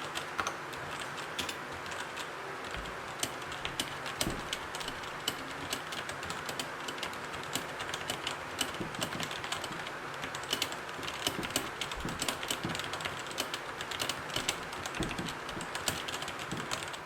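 Continuous typing on an AJAZZ AK33 mechanical keyboard with black linear switches: a fast, steady patter of fairly quiet keystrokes with a slight rattle from the keys.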